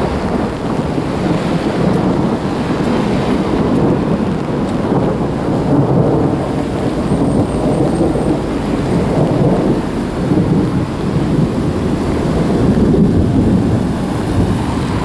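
Heavy rain during a thunderstorm, a dense hiss with a low rumble beneath it and no sharp peaks.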